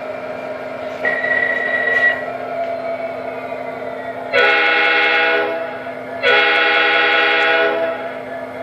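The MTH Premier SD80MAC O gauge locomotive's onboard sound system blows its air horn twice, each blast about a second and a half long, over a steady diesel engine hum. A brief high tone sounds about a second in.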